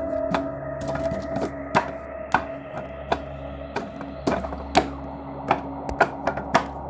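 Hands and forearms striking the wooden arms of a Wing Chun wooden dummy: quick, irregular sharp wooden knocks, about two a second, over a steady music drone.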